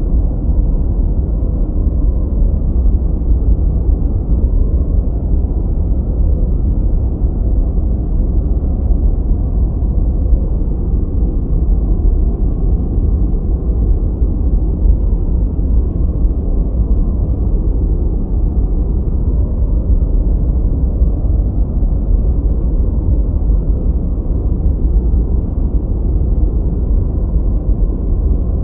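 Steady, deep noise track of the kind played for studying or sleep: an unbroken rushing rumble, heaviest in the bass, with almost nothing in the treble and no changes.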